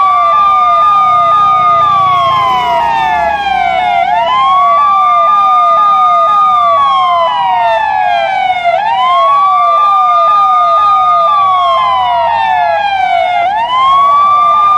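Police car siren. A slow wail rises, holds high and falls about every four and a half seconds, with a quicker tone on top of it that sweeps down a couple of times a second.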